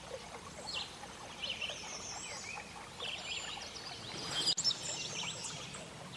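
Small birds chirping in short, repeated bursts over faint outdoor background noise, with one sharp click about four and a half seconds in.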